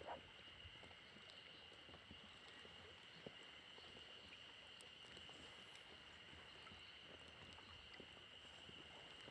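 Faint, steady high-pitched drone of a chorus of spring cicadas (haruzemi), with quiet lapping of small waves and a few light ticks.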